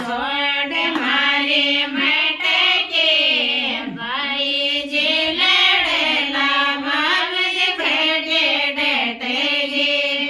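A woman singing a Rajasthani folk wedding song (geet) that calls on the gods and goddesses, in a continuous melodic line with sliding, ornamented pitch.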